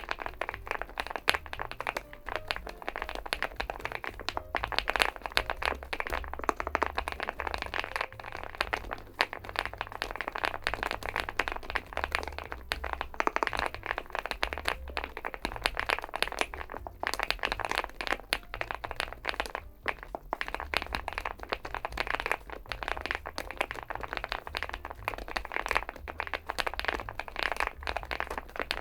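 Fast, continuous typing on a Weikav Stars80 aluminium-bodied, gasket-mounted mechanical keyboard: a dense, unbroken stream of keystroke clacks.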